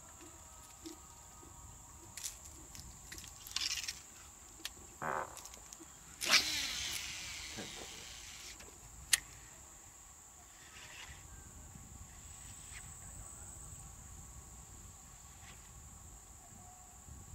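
A cast with a baitcasting rod and reel: a sudden swish about six seconds in, then the reel's spool whirring down in pitch for a couple of seconds as line pays out, and a single sharp click a few seconds after. A steady high insect buzz runs underneath throughout.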